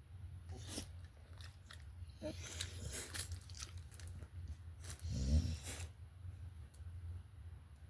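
Chewing with a run of crunching clicks, and a short low grunt-like vocal sound about five seconds in.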